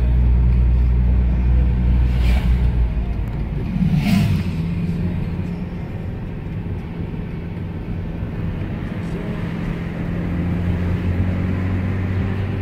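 Car engine and tyre noise heard from inside the cabin while driving: a steady low drone that shifts in pitch about four seconds in, with two brief knocks around two and four seconds in.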